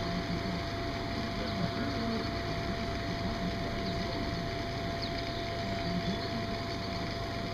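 Steady whirring fan noise with a faint constant whine, typical of the electric blower that keeps an inflatable finish arch inflated. Faint, distant voices run underneath.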